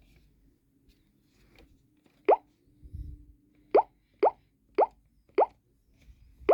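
Mobile phone ringtone made of short rising 'bloop' tones, like water drops: one about two seconds in, then a run of four about half a second apart, and another at the very end. A soft low thump comes between the first bloop and the run.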